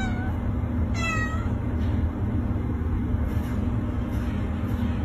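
A cat meowing: a short meow at the very start and a longer one about a second in, over a steady low hum.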